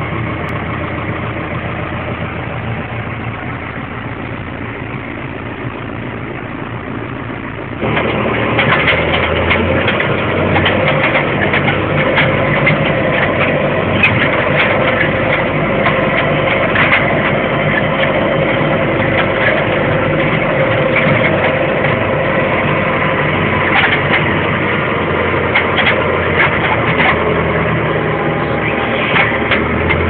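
John Deere 6330 tractor's diesel engine running steadily while pulling a seeder, heard from inside the cab. About eight seconds in, the sound suddenly gets louder, with rattling and clicking on top.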